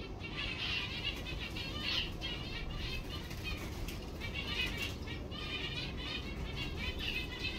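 A flock of small aviary birds chirping and twittering over one another in quick repeated notes, over a steady low rumble.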